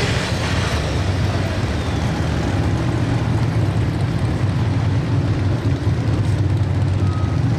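Light limited super stock pulling tractor's turbocharged diesel engine running flat out under full load as it drags the weight sled, a loud, steady, deep drone.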